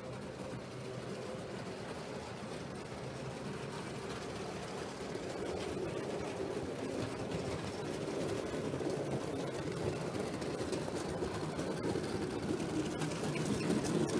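7mm-scale (O gauge) model goods train running across a viaduct: its motor and wheels rumble steadily on the track. The sound grows gradually louder as the train comes nearer.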